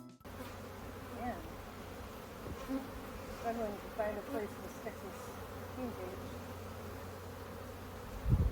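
Honeybees buzzing around the hive, single bees flying close by with their pitch bending up and down. A few low thumps come near the end.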